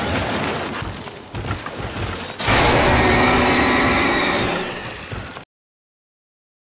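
Edited kaiju roar sound effects: a rough, noisy growl, then a louder roar that starts abruptly about two and a half seconds in, fades and cuts off suddenly.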